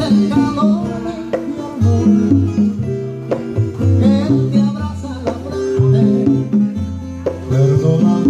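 Cuban son played by a quartet: an instrumental passage of plucked strings picking a melody over a bass line, without singing.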